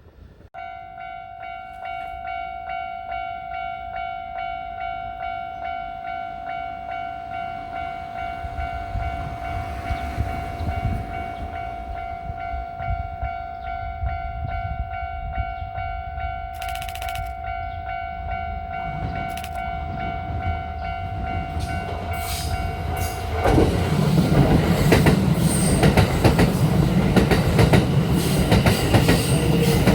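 Level crossing warning bell ringing in a steady pulsing rhythm as a Kintetsu Nagoya Line electric train approaches, with the rumble of the train growing. About 23 seconds in, the train reaches the crossing and passes close by: a loud rumble and the clatter of wheels over the rail joints, which drown out the bell.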